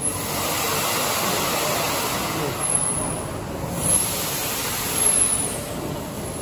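Triple-expansion steam pumping engine in operation, a steady rush of steam and moving machinery that swells and eases a few times, with visitors' voices in the background.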